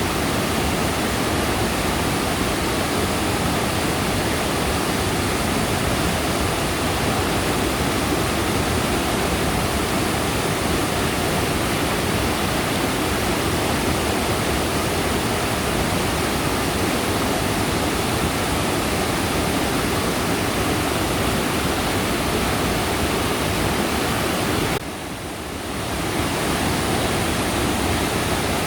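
Mountain valley stream rushing steadily over rocks, a constant water noise; it dips briefly near the end, then comes back.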